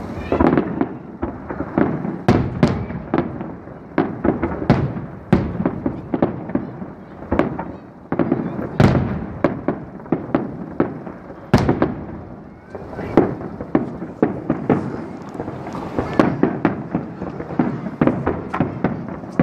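Aerial fireworks display: shells bursting in a quick, irregular string of sharp bangs and crackles, with rumbling echo between them.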